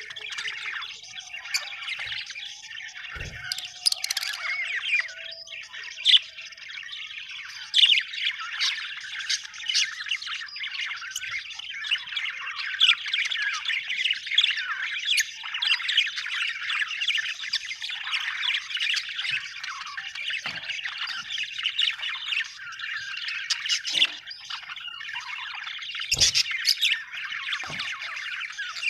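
A group of budgerigars chattering continuously with rapid chirps, warbles and squawks. Brief knocks sound about three seconds in and again near the end.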